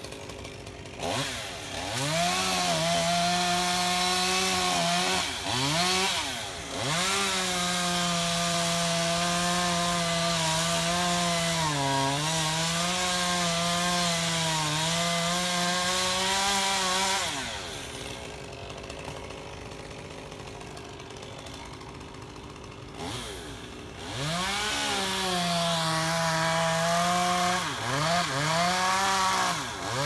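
Gas chainsaw revving to full throttle and cutting into a pine trunk, its pitch sagging a few times as the chain loads in the cut. About seventeen seconds in it drops back to idle for several seconds, then revs up and cuts again.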